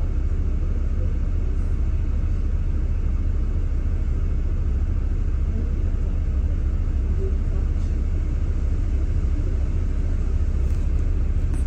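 Steady low rumble of a double-decker bus heard from on board, the bus standing or creeping in a traffic queue.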